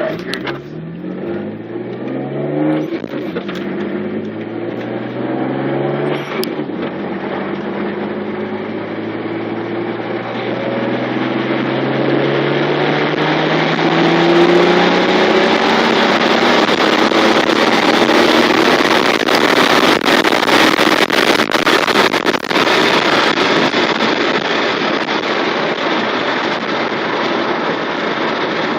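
Mitsubishi 3000GT VR-4's twin-turbo 3.0 L V6, with 15G turbos, pulling hard at open throttle. Its pitch climbs fast, drops back at a gear change about three seconds in, then rises steadily through a long third-gear pull. From about halfway on, a loud steady rush of wind and road noise covers the engine.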